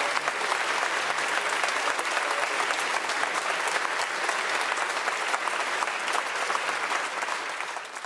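Audience applauding: dense, steady clapping that starts to die down near the end.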